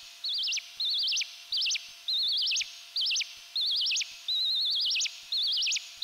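Self-oscillating Joranalogue Filter 8, its pitch driven by an Orbit 3 chaos oscillator, making synthetic bird-like chirps. About nine short, high tweets, each warbling faster and wider and ending in a quick swoop up and down.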